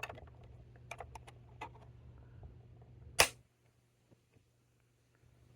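Small plastic clicks and taps as the battery cover is fitted back onto a plastic toy tractor, then one sharp, loud click about three seconds in.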